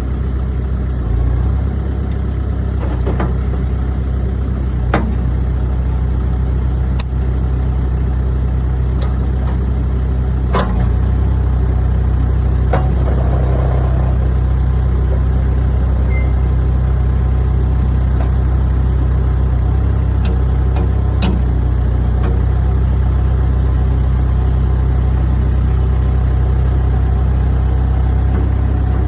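A New Holland B95B TC backhoe's diesel engine idling steadily, with a few sharp clicks over it. About ten seconds in, the engine note steps up slightly and runs a little louder.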